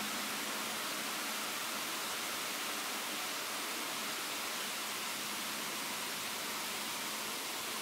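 Steady rain falling, an even hiss with no separate drops or bird calls standing out.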